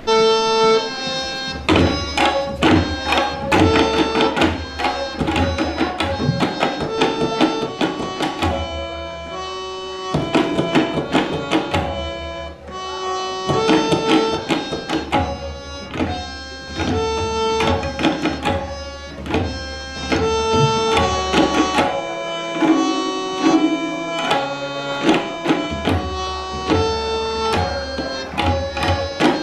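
An ensemble of tabla pairs played in unison in a fast, repeating rhythm: ringing, pitched strokes on the treble drums over the deep bass of the bayan. The playing briefly thins out near the middle.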